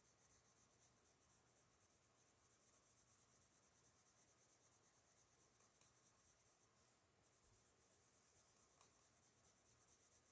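Faint, steady scratching of a colored pencil on paper, laying down overlapping strokes to blend colours.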